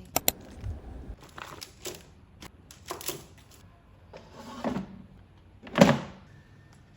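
Scattered clicks, taps and rustles of small objects being handled in a small room, with a louder knock about six seconds in.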